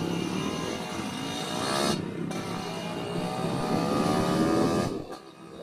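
Yamaha RX-King two-stroke single running through an aftermarket under-slung exhaust while riding. The engine note cuts out briefly about two seconds in, then climbs steadily in pitch as it pulls, and drops off near the end. The owner puts the bike's odd exhaust sound down to a wrongly set exhaust header.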